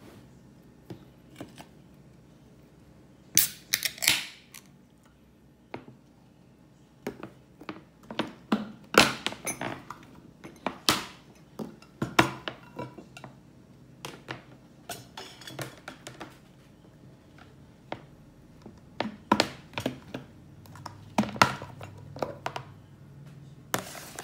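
Scattered clicks, taps and knocks from a beer can and a glass food container with a snap-lock plastic lid being handled on a table: the can's ring-pull is opened, and the lid's clips are unlatched and the lid lifted off.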